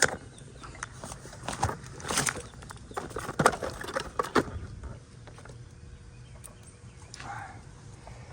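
A rapid run of sharp clicks and clacks from hand tools and meter leads being handled, over a steady low hum. The clicking thins out after about four and a half seconds.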